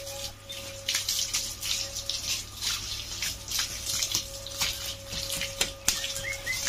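Water from a garden hose spraying and splashing onto a bicycle's frame and wheels, hissing and splattering unevenly as the stream is moved over the bike.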